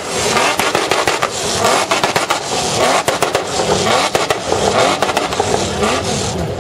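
Toyota Land Cruiser GX engine revving hard, rising and falling, as the truck drifts on a loose surface. Sharp exhaust crackles and pops run through the revving.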